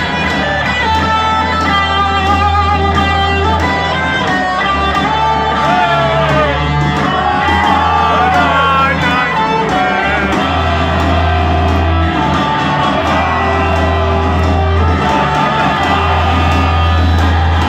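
Heavy metal music: electric guitar playing a melody with bends and vibrato over held bass notes that change every second or two.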